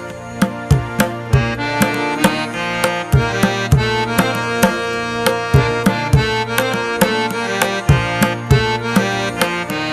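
Background music: a melodic instrumental with sustained pitched notes over a steady hand-drum beat, in the style of Indian music with tabla.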